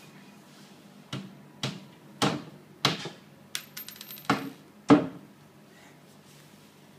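Claw hammer striking the inside of a wooden shoe rack cabinet: about six sharp blows roughly half a second apart, the last the loudest, with a quick run of light ticks partway through.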